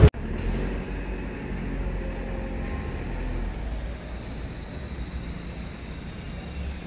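Outdoor city street background noise: a steady low rumble, like distant traffic, beginning abruptly just after the start.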